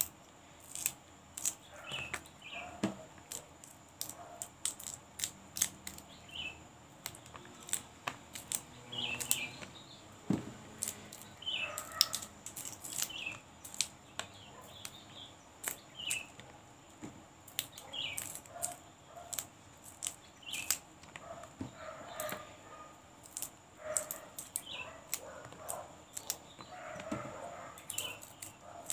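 Crisp snaps and clicks of water spinach (kangkung) stems being broken by hand, coming irregularly, several a second. Birds chirp briefly in the background every second or two.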